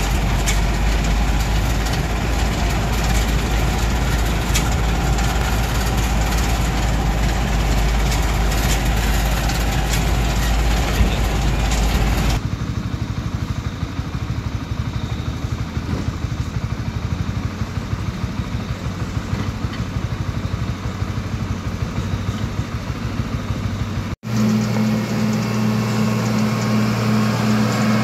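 A vehicle running along a rough dirt road, with a heavy low rumble. It then gives way to the diesel engines of heavy road machinery running. About 24 seconds in, a motor grader's diesel engine runs close by with a steady low hum.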